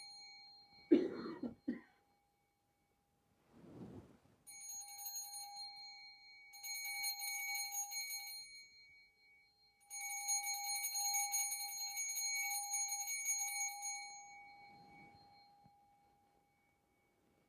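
Altar bell rung at the elevation of the chalice just after the consecration: a bright, steady ringing tone with high overtones, sounded in long peals lasting several seconds each, the last fading out near the end. A sharp thump about a second in, with soft rustling at times between the peals.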